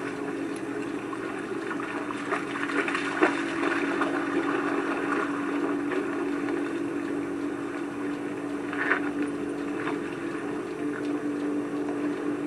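German Shepherds wading and splashing through shallow lake water, under a steady motor hum.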